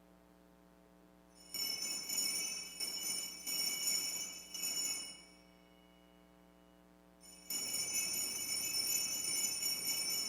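Altar bells, a cluster of small hand bells, shaken in two jingling bursts of a few seconds each, the first starting about a second and a half in and the second about halfway through: the ringing that marks the blessing with the Blessed Sacrament at Benediction.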